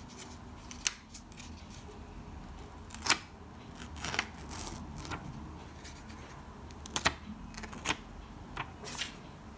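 Notepad paper being handled: pages peeled up and flipped back, giving light rustling and a series of short, crisp paper crackles, the loudest about three seconds and seven seconds in.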